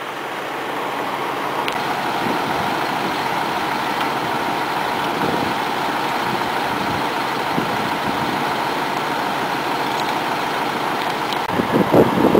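Heavy truck's diesel engine running steadily at idle, with a few faint clicks.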